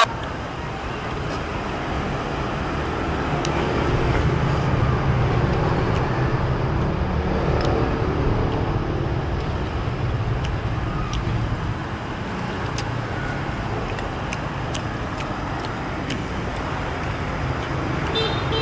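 Street traffic ambience: motorbikes and cars running by steadily, growing louder about four seconds in and easing off after about ten seconds. A few light clicks sound over it, and a short high beep near the end.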